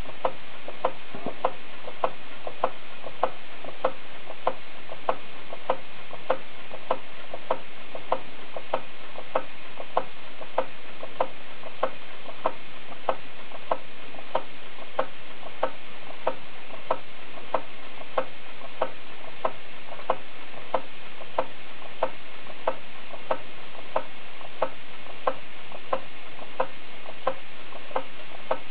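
Small Stevens Model Dockyard horizontal model steam engine just ticking over, running slowly with an even tick a little under twice a second over a steady hiss.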